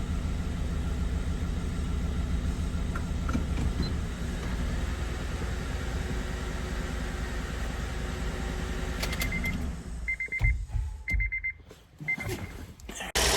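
2009 Acura TSX's 2.4-litre four-cylinder engine idling with an ongoing misfire, then going quiet. After that, a car's electronic chime beeps in short bursts about once a second.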